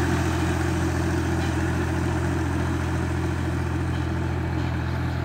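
Diesel tractor engine running steadily as it pulls a disc harrow, a constant low hum that eases off slightly as the tractor draws away.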